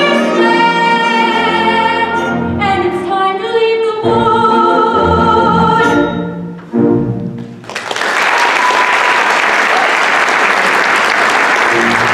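A woman's solo singing voice finishing a musical-theatre song over instrumental accompaniment, the last notes held with vibrato. The song ends a little under eight seconds in and audience applause starts at once and carries on.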